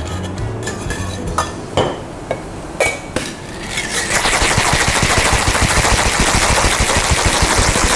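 Stainless steel tin cocktail shaker: a few clinks and knocks of the metal tins in the first half, then from about four seconds in a fast, continuous rattle of ice as the shaker is shaken hard.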